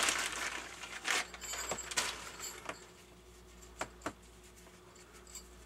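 Rustling and handling noise of small objects being picked up and moved, with several light clicks and taps. It dies down about three seconds in, with two more faint clicks shortly after.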